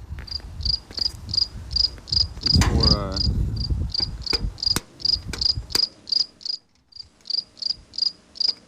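A power drill runs briefly, its motor whine rising in pitch about two and a half seconds in. Throughout, an insect chirps steadily at about three chirps a second.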